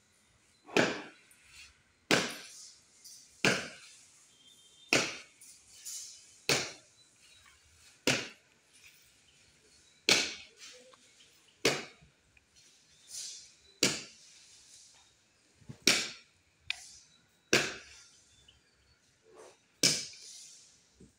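Repeated chopping blows into a kithul palm log, about a dozen sharp cracks roughly one every one and a half seconds.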